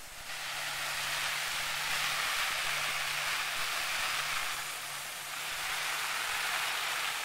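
Water from a garden hose spraying down on a military poncho shelter, a steady hiss of simulated rain pattering on the poncho, heard from inside the shelter. It starts abruptly just after the start, eases briefly about halfway through, then comes back as strong.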